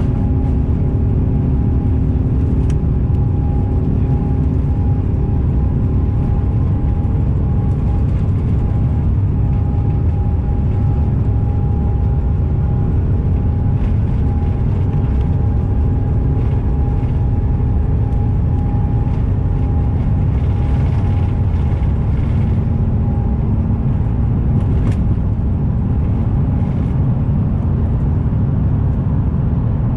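Steady cabin noise aboard an Airbus A350-900: a loud, even low rumble with a few steady hum tones from the Rolls-Royce Trent XWB engines and airflow.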